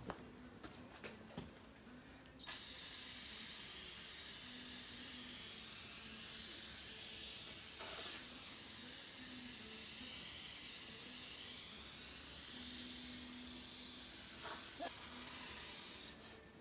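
Aerosol can of brake cleaner spraying in one long continuous hiss onto a freshly machined clutch flywheel to wash off its anti-rust coating. It starts about two and a half seconds in, runs for about twelve seconds, and weakens near the end as the can runs low.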